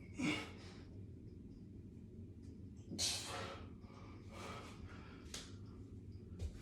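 A person breathing: a few short, sharp breaths or sniffs, the louder ones near the start and about three seconds in.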